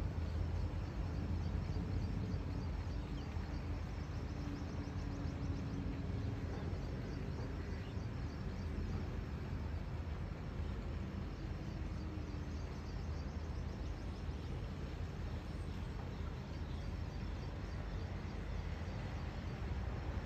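Steady outdoor background noise: a low rumble with a faint hiss over it.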